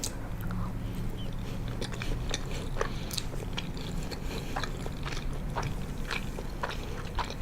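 Close-miked chewing of penne pasta with imitation crab: soft, wet mouth clicks and smacks scattered through, over a faint steady low hum.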